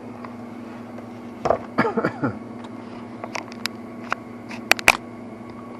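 Sharp metallic clicks and clinks of hand tools and small engine parts being handled, the loudest pair near the end, over a steady low background hum.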